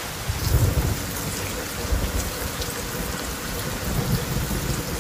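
Heavy rain falling steadily, with low rumbles of thunder about half a second in, around two seconds and again around four seconds.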